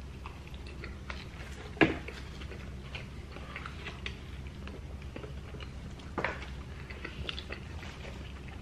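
Mouth sounds of people eating a burger and fries: chewing and biting, with scattered small clicks and two louder sharp clicks, one about two seconds in and one about six seconds in.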